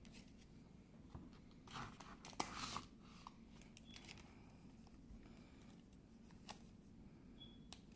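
Foil Pokémon booster pack being opened and handled: a few short crinkling, tearing rustles about two seconds in, followed by faint scattered clicks and rustles of the wrapper and cards.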